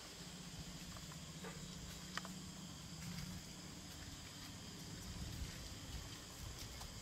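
Night insects chirring steadily in a high, continuous drone, over a low hum. A few faint clicks and knocks come through, one a little louder about two seconds in.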